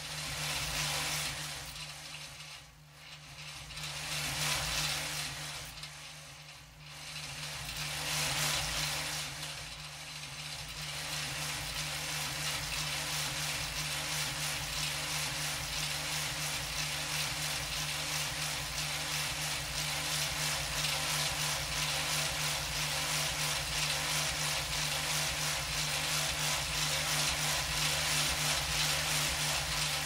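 Air vent vibrating with a metal rattle: a rushing airflow noise that swells and fades three times over the first ten seconds or so, then holds steady, over a steady low hum.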